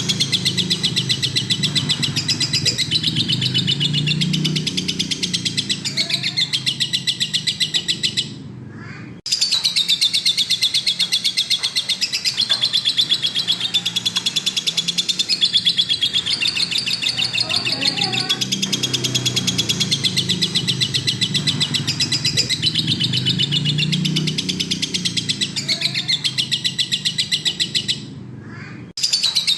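Lovebird chattering in a long, rapid, unbroken run of high chirps, the continuous 'gacor' song kept for training other birds, breaking off briefly about 8 seconds in and again near the end.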